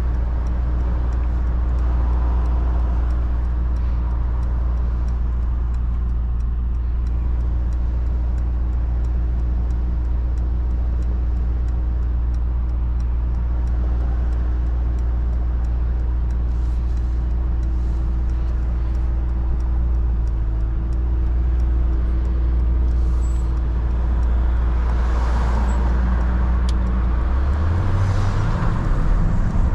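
Mercedes-AMG GT63 S's twin-turbo V8 running at a steady low drone while cruising, then rising in pitch near the end as the car accelerates.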